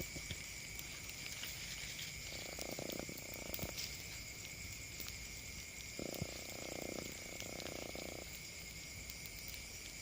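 Faint night chorus: a steady high drone of insects, with two bouts of a lower, rapidly pulsing call, typical of frogs, about 2 s in and about 6 s in.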